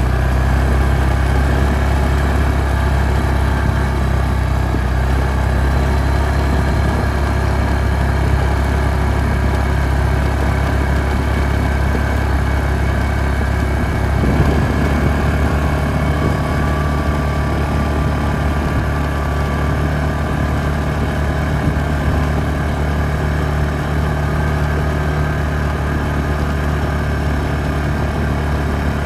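Yamaha Grizzly 450 ATV's single-cylinder four-stroke engine running steadily while riding, its note shifting about halfway through.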